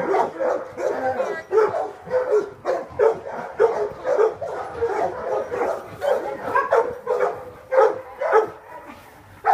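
Terrier barking and yipping over and over, about two calls a second.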